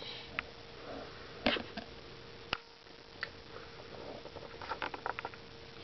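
Sporadic light clicks and taps of plastic-tub and camera handling noise, with a quick cluster of them near the end, over a faint steady hum.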